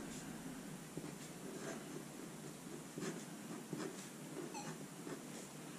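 Fineliner pen writing on paper: faint, short scratching strokes as the pen tip moves over the sheet.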